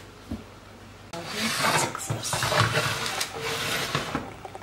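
Rough rubbing and scraping with scattered light knocks as a baking tray is handled in an oven with a cloth oven mitt, starting about a second in and dying away near the end.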